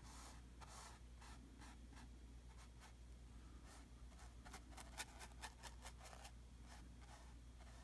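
A paintbrush scratching over textured canvas in short, quiet strokes, with a denser run of sharper scratches about five seconds in.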